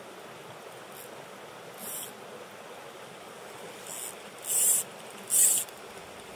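Fly reel drag buzzing in short high-pitched bursts as a hooked steelhead pulls line off the reel, the last two bursts the loudest, over the steady rush of the river.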